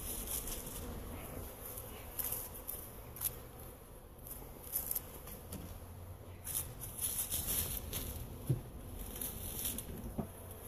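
Crackling and rustling of footsteps on dry leaves and gravel, with a beekeeping suit's fabric and the hives being handled, over a steady low hum of honeybees flying around the hives.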